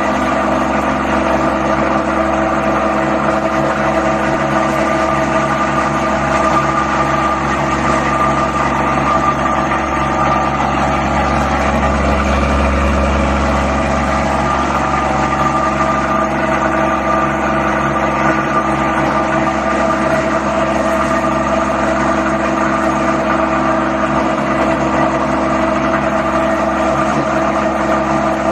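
Plastic agglomerator machine running steadily, a loud even motor hum with several steady tones over a constant rushing noise.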